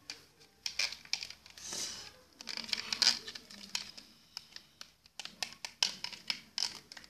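Irregular scraping and clicking of a utensil working in a small container, as pink lipstick is mixed into a dish-soap and shampoo slime mixture.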